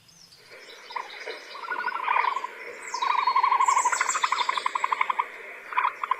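A bird calling in several rapid trilled series of quick repeated notes, with a few short high chirps above them.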